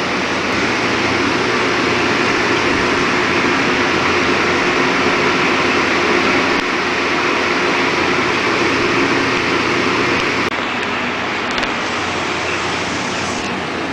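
Steady loud rush of cooling fans and blowers, with a low hum underneath; the hiss drops a little about ten and a half seconds in.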